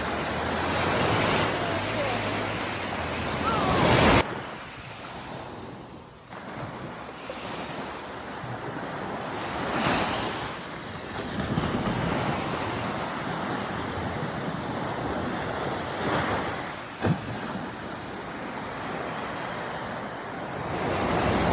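Sea surf washing on the shore, the noise swelling and ebbing with each wave, with wind buffeting the microphone. One short click sounds late on.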